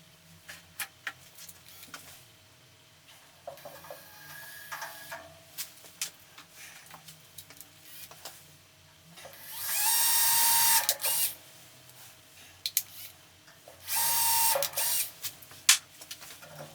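A power drill run in three short bursts, each with a steady whine; the second and third are loud and rise quickly as the trigger is squeezed, and the first is fainter. Scattered clicks and knocks of handling come between them.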